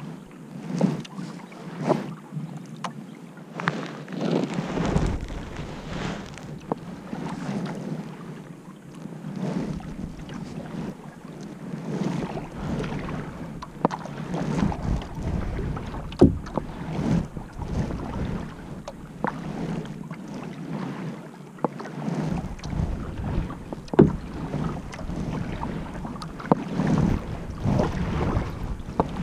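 Kayak paddle strokes: the blades repeatedly dip and splash through calm water, with occasional sharp knocks. Wind rumbles on the microphone at times.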